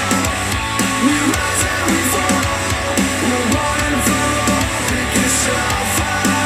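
Instrumental music with guitar, a steady bass and drums, played back through a JBL Charge 4 Bluetooth speaker.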